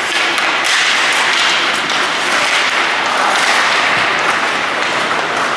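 Ice hockey play on an indoor rink: a steady hiss of skate blades on the ice, with faint scrapes and stick taps now and then.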